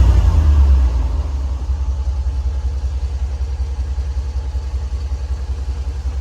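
SRT Jeep's V8 engine dropping from raised revs to idle about a second in, then idling steadily with an even low pulse, freshly started after a new alternator and a recharged battery.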